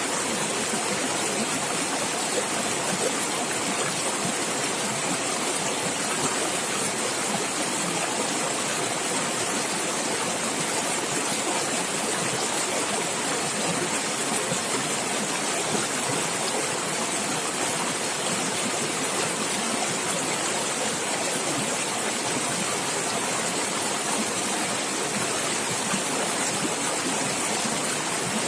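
Running water in the wild, splashing and gurgling in a steady, unbroken rush.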